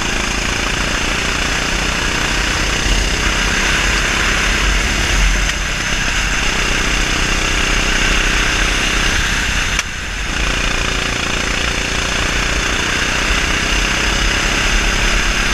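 Onboard sound of a 390cc four-stroke kart engine running hard at speed, with wind rush over the kart. The engine sound dips briefly about ten seconds in, then picks up again.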